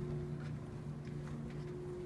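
Footsteps of several people walking along a carpeted corridor, soft steps about two a second, over a steady low hum.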